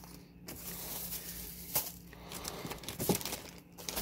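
Clear plastic zip-top bags and old paperwork rustling and crinkling as a hand pushes through them, with a couple of light knocks.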